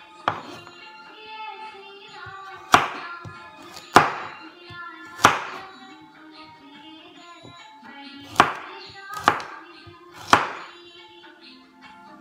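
Chef's knife chopping vegetable chunks on a wooden cutting board: about seven sharp chops, irregularly spaced a second or so apart, over steady background music.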